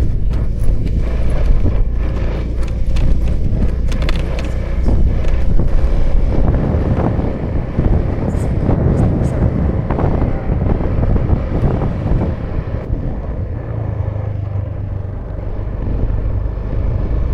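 2018 Honda Vision scooter being ridden: its small single-cylinder engine running steadily under wind and road noise, with scattered clicks and knocks throughout.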